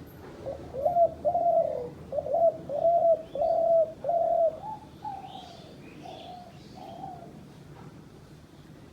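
Dove cooing: a run of about a dozen short, repeated coos, loudest in the first half and growing softer from about halfway, with faint high chirps of another bird in the middle.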